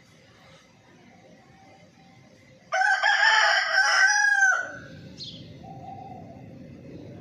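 A rooster crows once: a single loud crow of about two seconds, starting near the middle and ending on a falling note. A brief faint high chirp follows it.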